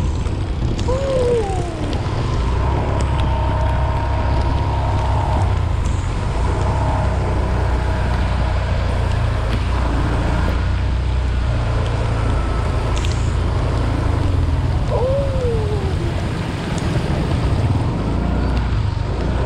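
Heavy rain and tyre spray on a wet road, heard from a camera riding through a downpour: a steady low rumble of wind on the microphone under an even hiss of rain and water. Two short falling tones come through, about a second in and again about fifteen seconds in.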